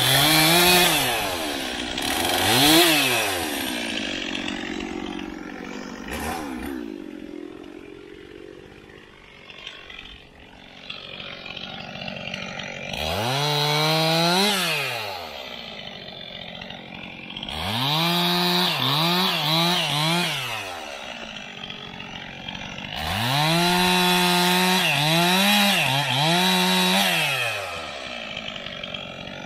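Stihl two-stroke chainsaw bucking logs into firewood. It revs up and drops back to idle several times, then holds at high revs with short dips as the chain works through the wood.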